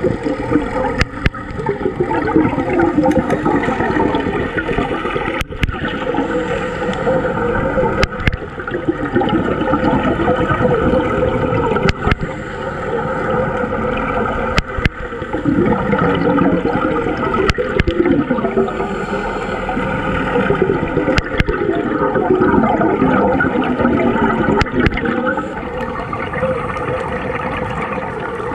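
Underwater recording of scuba divers' exhaled bubbles gurgling in swells every few seconds, with scattered sharp clicks.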